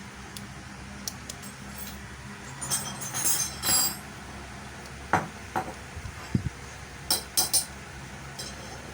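Irregular light clicks, clinks and short scrapes of small hard parts and a hand tool being handled while a plug is fitted onto a cord, with a cluster of scrapes about three seconds in and a few sharper clicks later.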